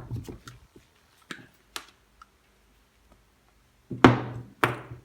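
Light clicks and taps from handling electrical wiring, then two louder knocks about four seconds in, half a second apart.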